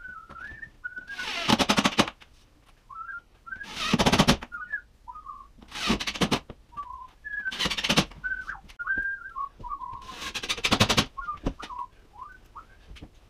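A cordless drill drives drywall screws in five short, loud bursts of rapid clattering, each setting a screw head just into the paper. Between the bursts a man whistles a wandering tune.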